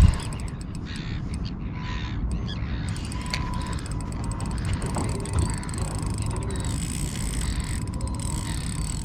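Daiwa Freams spinning reel clicking and ratcheting as line is worked on a big jewfish, over a steady low rumble, with a single sharp knock right at the start.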